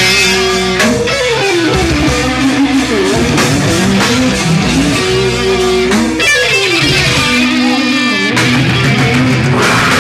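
A live rock band playing loudly, with electric guitar to the fore.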